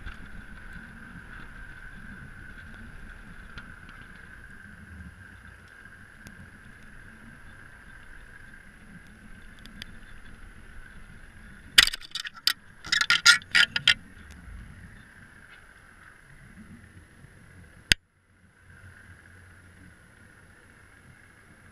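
Underwater sound inside a camera housing descending to a rocky seafloor: a steady whine over a low rumble, then a cluster of loud knocks and clatters about twelve to fourteen seconds in as the camera meets the bottom, and one more sharp knock a few seconds later.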